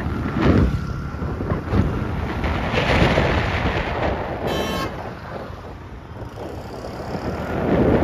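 Road traffic with vehicles passing, and one short horn toot about four and a half seconds in.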